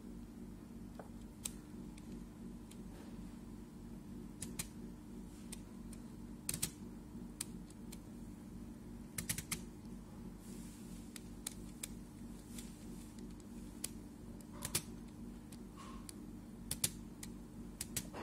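Irregular clicking of a laptop's controls, single clicks and quick pairs every second or two, over a steady low hum.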